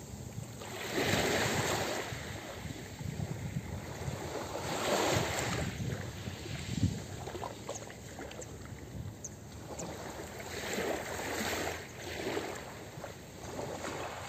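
Small sea waves washing onto a pebble beach, each wash swelling and fading every few seconds.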